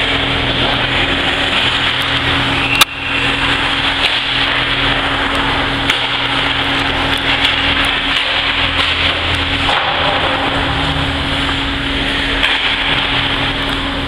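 Ice hockey game in an indoor rink: steady noisy din of the rink with a steady hum under it, and skates and sticks on the ice. One sharp, loud crack about three seconds in, with a few fainter knocks later.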